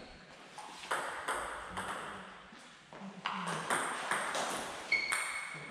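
A table tennis rally: the ball clicking sharply off the bats and the table in quick, irregular succession.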